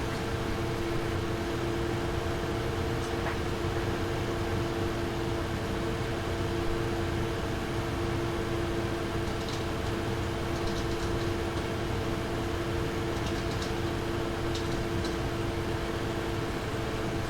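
Nvidia GeForce RTX 2070 Super graphics card fans running at a steady speed, a constant hum of two close tones over a whir of air. A few faint light ticks come through about halfway in.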